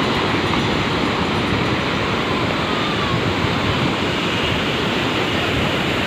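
Sea surf breaking and washing up on a sandy beach: a steady, even rush of water.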